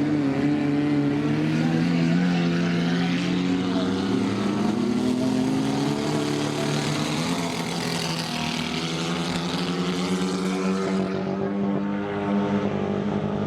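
Racing car engines of the 1100 category running hard in a steady drone. The pitch climbs slowly over the first several seconds and then holds.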